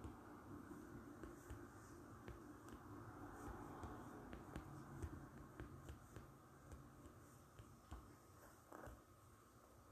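Near silence with faint, scattered clicks of typing on a smartphone's touchscreen keyboard over a low room hum.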